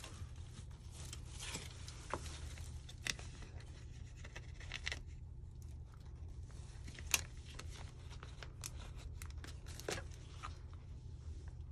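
Small plastic bag of mica powder crinkling and rustling in gloved hands as powder is shaken out of it, in scattered short strokes with a few light clicks and one sharper click about seven seconds in, over a steady low hum.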